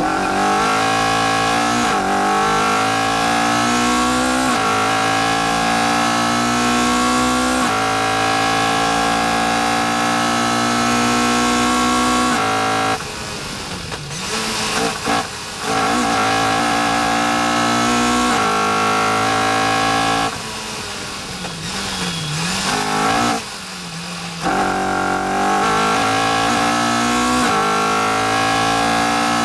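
Caterham R400's four-cylinder engine, heard from the cockpit, running at full throttle and pulling up through the gears with three quick upshifts in the first eight seconds. It then lifts off twice for braking, the note dropping and dipping with downshifts, and near the end it accelerates hard again with another upshift.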